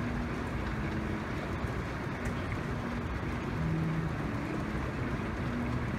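Steady running noise of a store escalator and the cart escalator beside it carrying shopping carts upward.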